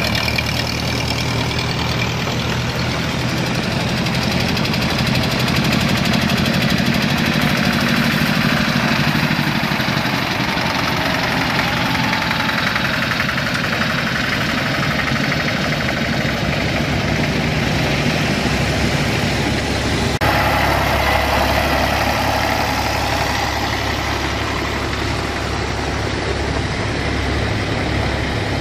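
Several vintage tractor engines running as the tractors drive past one after another. About twenty seconds in the sound changes suddenly to a lower, steadier engine note.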